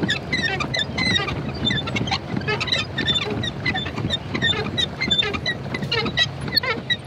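A small boat moving on a lake: a low steady drone under many short, high chirps that come thick and irregular.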